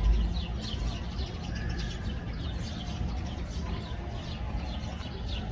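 A flock of sparrows chirping busily: many quick, short chirps overlapping without a break. A low rumble runs underneath and is loudest at the very start.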